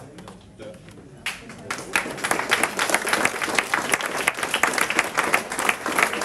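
Audience applauding: a few claps about a second in, building quickly into steady clapping.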